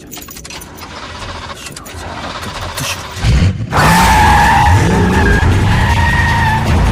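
Film sound effects of a car chase: a car engine revving, with rising pitch sweeps, then, about halfway through, a loud, long tire squeal that holds a steady pitch for about three seconds.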